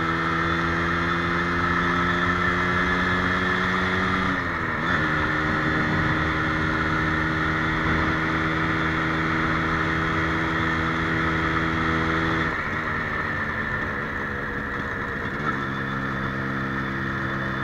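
Yamaha RXZ's two-stroke single-cylinder engine running at steady revs while being ridden. About four and a half seconds in, the revs dip briefly and recover, and in the last five seconds they fall in two steps to a lower, steady pitch.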